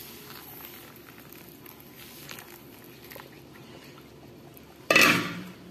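Hot water being poured into a bowl of dry bulgur wheat, a faint steady splashing and trickling as the grains soak it up. About five seconds in comes one sudden, much louder sound that dies away within about half a second.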